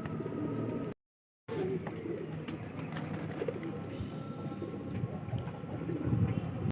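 Domestic pigeons cooing, several low coos overlapping. The sound drops out completely for about half a second, about a second in.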